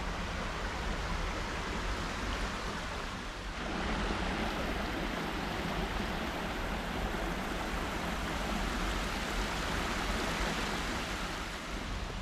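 Steady rush of flowing creek water, a little louder from about three and a half seconds in.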